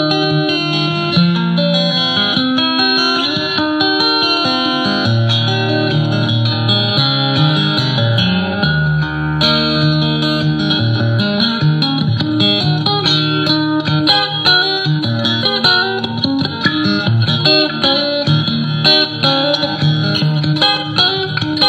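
Guitar tune played on a modified Washburn acoustic guitar through a modelling practice amp: a continuous run of picked notes with low notes moving underneath.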